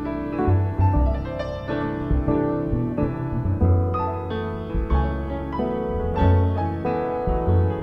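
Instrumental jazz played live by piano, bass and guitar, with the piano leading over low bass notes.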